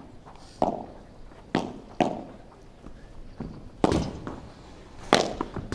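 Padel rally: a series of sharp pops as the ball is struck by solid padel rackets and rebounds off the court and the glass walls, about eight hits, irregularly spaced.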